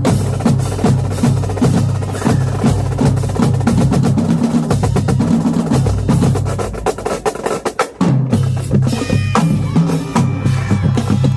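Marching drumline playing fast, dense rhythms on snare and bass drums. Past the halfway point the playing thins and drops in volume for about a second, then comes back in full.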